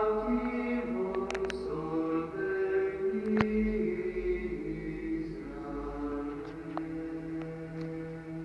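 Sacred vocal chant: voices singing long held notes that step slowly from pitch to pitch. A few sharp clicks sound over it, the loudest about three and a half seconds in.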